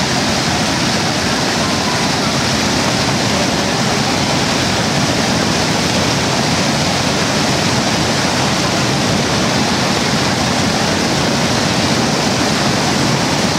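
Niagara Falls: the water pouring over the brink in a loud, steady, unbroken rush.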